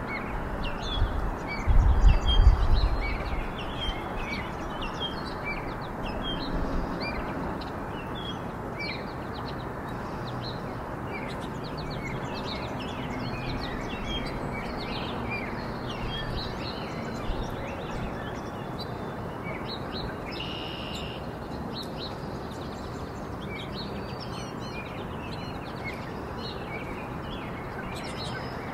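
Many small songbirds chirping and twittering in short, scattered calls over a steady rushing background noise, with low rumbling thumps in the first few seconds.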